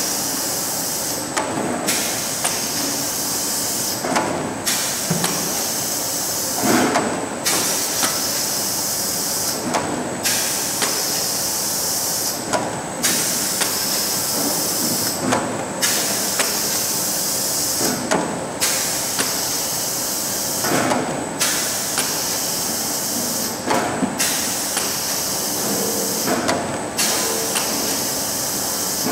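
Soap stamping machine running through its cycle: a steady hiss of air that cuts out briefly about every three seconds, with clicks and knocks from the stamping mechanism at each stroke.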